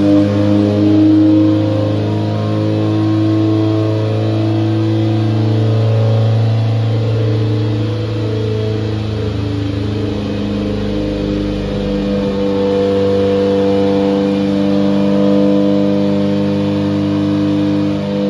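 Turbocharged Mazda FE four-cylinder engine running hard under load on a dyno. Its note holds fairly steady, then shifts about ten seconds in with a brief low rumble.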